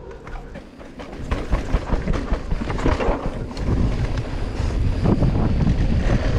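Wind buffeting the microphone of a mountain bike's point-of-view camera as it rides fast down a dry dirt trail. It is mixed with the rattle and knocks of the bike over the bumps. The rumble grows louder about a second in as speed picks up.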